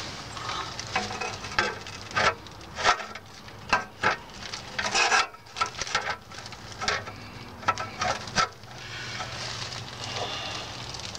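Irregular scuffs and light clicks of handling as an oil pan is moved up under the engine, over a faint steady low hum; the scuffing dies down about three-quarters of the way through.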